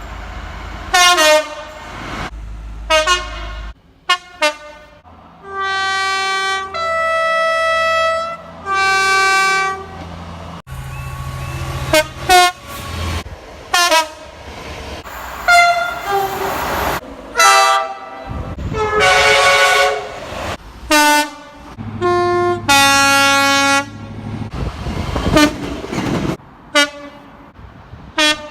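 Horns of British trains, locomotives and multiple units, sounding one after another with abrupt cuts between clips: mostly short blasts, and about five seconds in a long three-note call that alternates between two tones.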